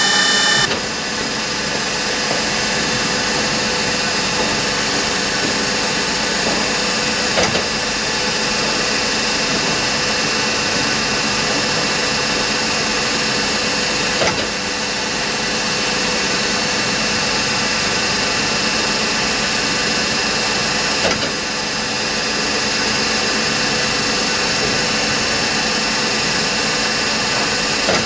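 Nomura DS 10EX3 automatic lathe cutting: a steady machine hum with several high whining tones. A high whine drops away less than a second in, and a short click comes about every seven seconds as the cycle repeats.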